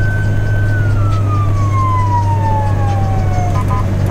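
Ambulance siren wailing: one slow cycle that holds high and then falls steadily in pitch, with a couple of short blips near the end. A steady low vehicle drone runs underneath.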